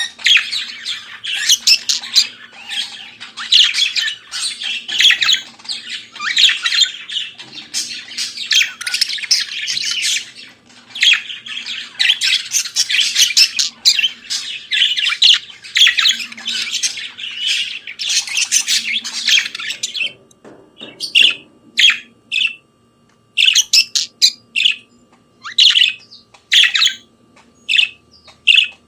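Budgerigar warbling and chattering, a dense unbroken stream of chirps and squawks that breaks up about two-thirds of the way through into short separate calls with gaps between them.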